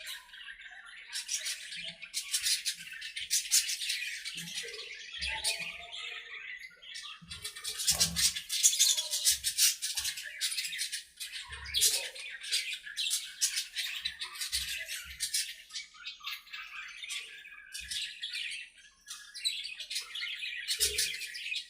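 A flock of budgerigars chattering and chirping, many birds calling at once in rapid, overlapping warbles, with a few soft low thumps.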